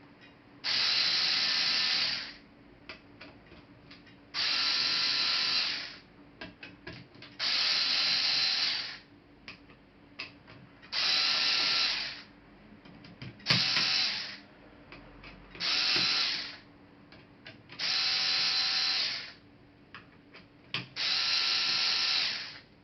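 Small electric screwdriver spinning in short runs of about a second and a half, eight times, driving laptop case screws, with light clicks of handling the screws and parts between runs.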